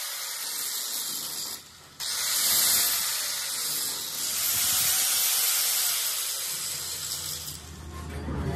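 Small handheld angle grinder grinding the teeth of a steel pinion gear, a steady hissing grind. It drops away briefly about a second and a half in, then resumes, and fades near the end as a low hum comes in.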